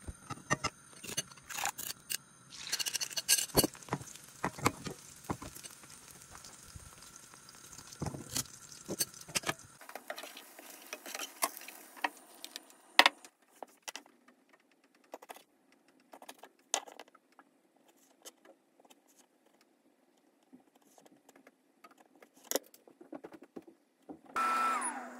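Cooking sounds of kitchen utensils: scattered clinks, taps and scrapes against a frying pan and a cutting board, with the loudest sharp knock about thirteen seconds in.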